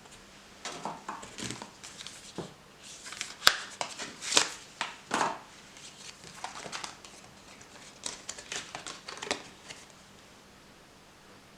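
Hands unpacking a box: paper and packaging rustling in irregular bursts, with light taps and clicks and one sharp click a few seconds in.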